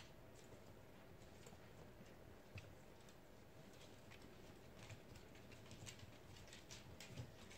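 Faint, scattered clicks and taps of puppies' claws on a laminate floor as they scramble over a plush toy, a little more frequent in the second half.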